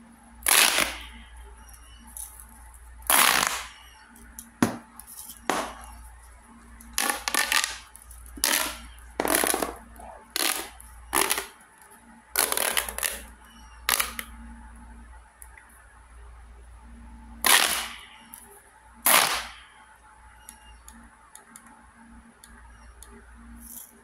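Blue LED pop tube fidget toy, a corrugated plastic tube, being compressed and bent by hand, its ridges snapping between stretched and collapsed with sharp crackling pops. There are about a dozen short bursts at uneven intervals, with longer gaps in the second half.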